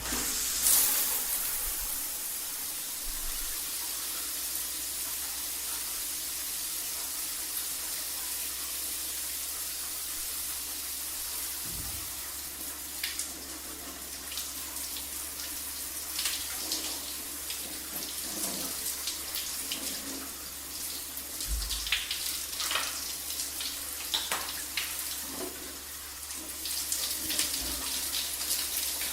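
Shower water running steadily, spraying and splashing, with irregular louder spatters throughout.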